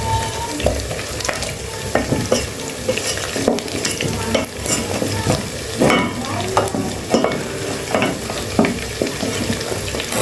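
Food frying in a cooking pot while it is stirred with a utensil that scrapes and knocks against the pot at irregular intervals.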